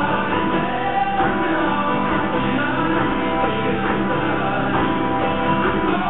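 Rock song playing steadily, with a singing voice over the band.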